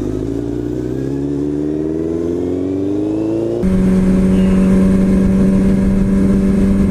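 Motorcycle engine accelerating, its pitch rising steadily for about three and a half seconds. It cuts abruptly to a second sport motorcycle running at a steady engine speed while cruising, a louder, even tone with road and wind noise.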